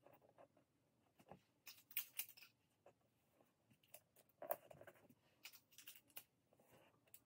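Faint crackle and rustle of clear tape and paper being handled and pressed flat, in short scattered clicks.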